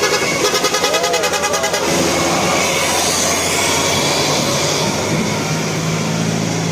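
Large road vehicle passing close by, most likely a tour bus, with steady engine and tyre noise. A fast, even pulsing sound with a few pitched notes runs through the first two seconds.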